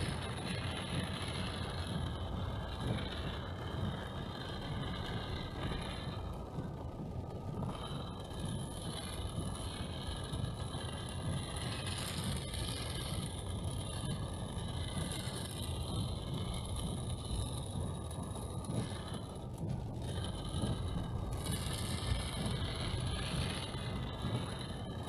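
A car driving, with steady engine and road noise throughout.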